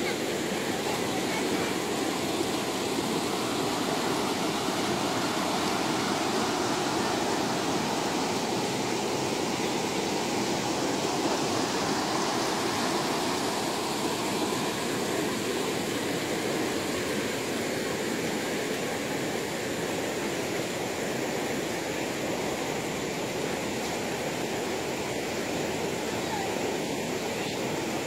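Shallow river water rushing steadily over boulders and through small rapids.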